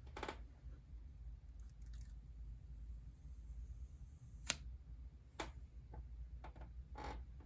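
A few scattered light clicks and taps from handling small objects, the sharpest about four and a half seconds in, over a low steady hum.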